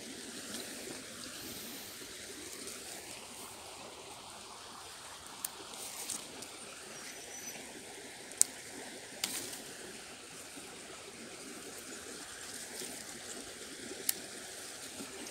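Undergrowth being pushed aside by hand: about five short, sharp snaps and crackles of twigs and leaves over a steady outdoor hiss. The loudest snap comes a little past the middle.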